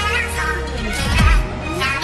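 Electronic music with a heavy bass line and falling bass drops.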